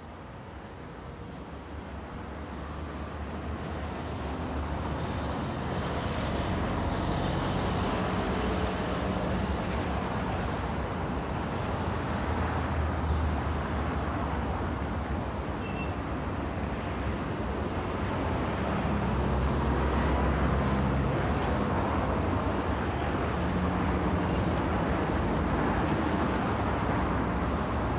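City street traffic: cars and trucks passing in a steady wash of road noise that fades in over the first few seconds, with heavier engine rumbles swelling as vehicles go by, once around the middle and again later.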